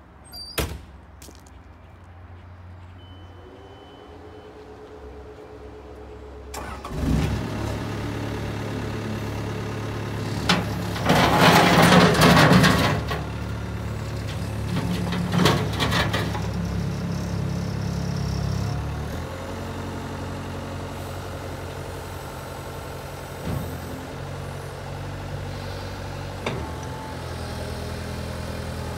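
Caterpillar 246C skid steer loader's diesel engine starting about six and a half seconds in and then running. It runs loudest for a couple of seconds around the middle, then settles to a steady run. A sharp knock comes just after the start.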